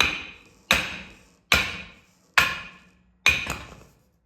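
Hammer blows on the pinion of a Sterling 10.5 rear axle, driving it out of the carrier: five strikes about a second apart, the last followed by a quick second hit, each ringing briefly.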